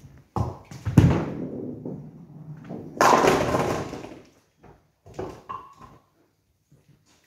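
A nine-pin bowling ball thuds onto the lane about a second in, rolls, and crashes into the pins about three seconds in, the pins clattering as they fall. A few lighter knocks follow near the end.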